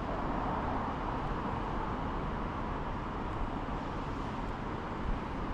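Steady background noise of road traffic, an even rush with a low rumble underneath and no distinct events.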